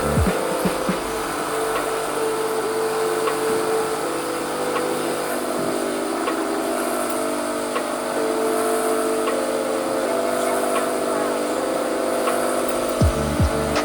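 Homemade corn sheller driven by a salvaged Sanyo water-pump electric motor, running steadily with a hum, with scattered sharp clicks.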